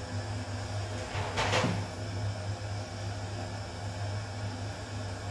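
Folding bathroom door rattling briefly as it is pushed open, about a second and a half in, over a steady low hum.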